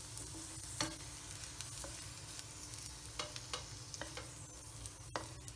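Okra pieces sizzling in hot coconut oil in a nonstick pan, with a wooden spoon scraping and tapping against the pan several times as the fried okra is lifted out.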